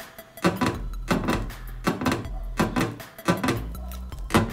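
Closed door of a Renault Grand Scenic 3 creaking in a string of short squeaks as it is pressed lightly and rocked. The owner traces the creak to dust and dirt on the rubber stop that the latched door presses against.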